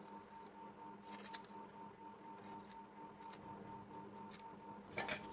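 Polystyrene foam crackling and squeaking in short, sharp bursts as it is handled and cut with a soldering-iron hot knife. The loudest bursts come about a second in and near the end, over a faint steady hum.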